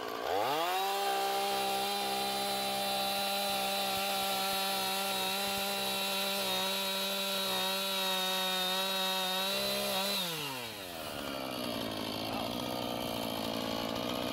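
Husqvarna 445 two-stroke chainsaw engine revving up sharply just after the start and held at full throttle at a steady high pitch for about ten seconds, then dropping back to idle near the end.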